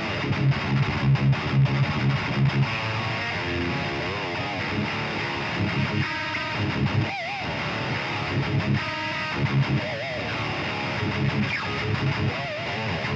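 Heavily distorted electric guitar playing a metal riff through a high-gain amp: rhythmic palm-muted low chugs, broken up in the middle and near the end by held, bent lead notes with vibrato.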